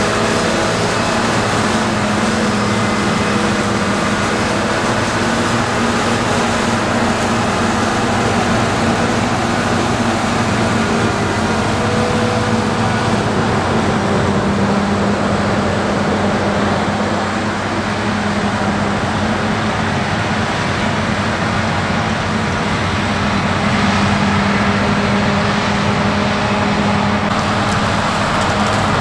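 Heavy harvest machinery running steadily: a diesel engine's steady drone under a broad rushing noise, growing a little louder about three-quarters of the way through.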